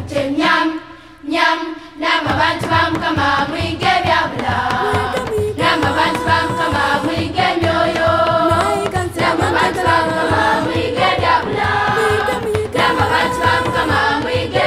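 Background music: a choir singing over a steady drum beat, which drops away briefly near the start and then comes back.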